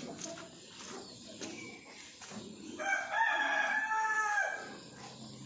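A rooster crows once, about three seconds in: a single drawn-out call lasting nearly two seconds that drops in pitch at the end.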